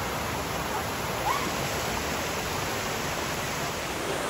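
Shallow creek water rushing over a wide, flat rock slide: a steady, even hiss of moving water.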